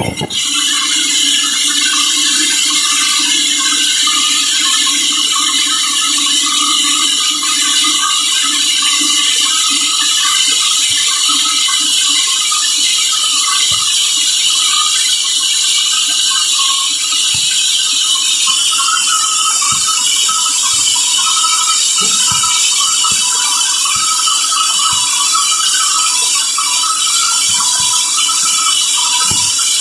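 Sawmill saw cutting through a large teak log: a loud, steady, high-pitched machine noise with a few short knocks scattered through the second half.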